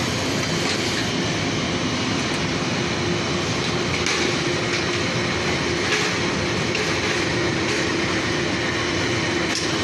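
PVC foam board extrusion line running: a steady machine din with a constant low hum and a few faint clicks.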